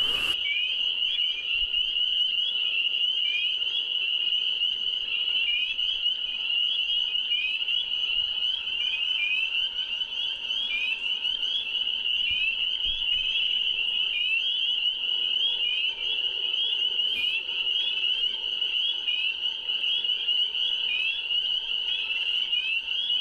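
A dense chorus of spring peepers: many overlapping short, high, rising peeps blend into one steady shrill.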